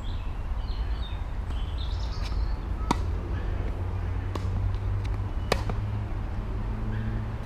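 Tennis rally: sharp knocks of rackets striking the ball, the two loudest about two and a half seconds apart, with a fainter knock between them. Birds chirp in the first couple of seconds over a steady low rumble.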